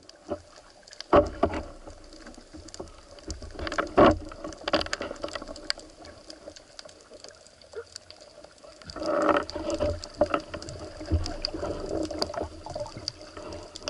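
Underwater sound picked up by a diving camera: muffled water movement with scattered faint clicks and crackles, dull knocks about a second in and about four seconds in, and a louder rushing stretch around nine seconds in.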